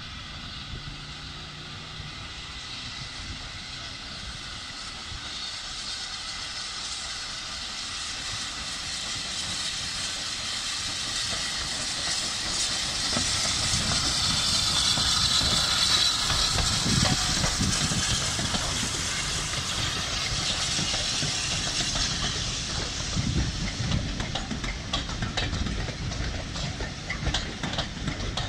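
Caledonian Railway 0-4-4 tank locomotive No. 419 passing with a train, its steam hissing and growing louder as it draws near, loudest about halfway through. In the last few seconds the coaches roll by, their wheels clicking over the rail joints.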